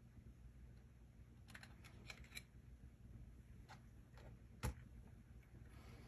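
Faint small clicks and taps from a mechanical push-button keypad knob lock being handled, a quick cluster of them about a second and a half in, and one sharper click a little over four and a half seconds in.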